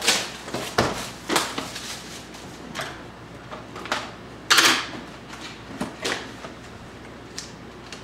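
Plastic shrink-wrap being cut and pulled off a cardboard box of trading cards, and the box opened: a series of short crinkling and scraping noises, the loudest about four and a half seconds in, dying away after about six seconds.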